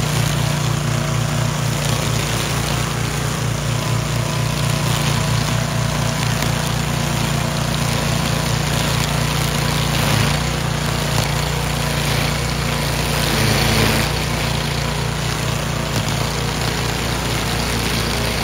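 Toro walk-behind string trimmer mower with a Briggs & Stratton engine running steadily while its spinning line cuts tall grass. The cutting noise swells briefly about ten seconds in and again around fourteen seconds.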